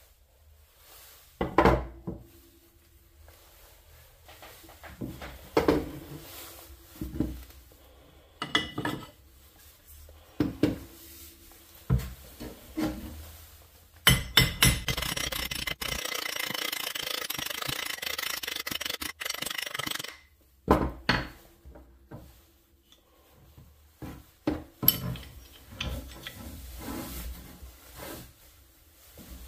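A plastic-faced mallet knocking a steel axe head down onto a new wooden handle, among separate knocks of tools and wood set on a wooden workbench. In the middle there is a dense, noisy run of quick strikes lasting about six seconds.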